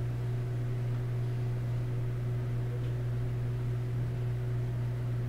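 Room tone: a steady low hum with a faint even hiss, no change throughout.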